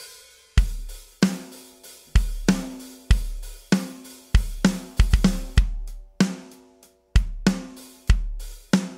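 ML Drums Luxe virtual drum kit, sampled from a 1970s Ludwig Classic Maple kit, playing its default preset groove. Kick, snare and cymbals go in a steady beat, with the kick leaving a long low boom. A quick run of hits comes about five seconds in, and the beat stops briefly just before seven seconds, then comes back in.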